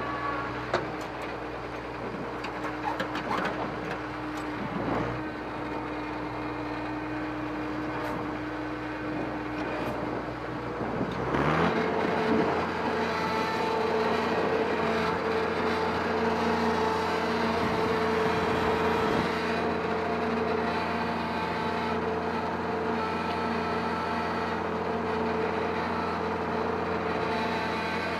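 Farm diesel engine running steadily, with a sharp knock and a few clicks early, then revving up about eleven seconds in and holding at a higher engine speed.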